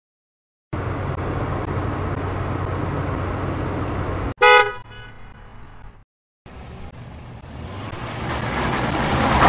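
Separate car sound effects one after another: a car engine running steadily, then a short toot of a car horn that dies away. After a brief silence, a car approaching and growing steadily louder.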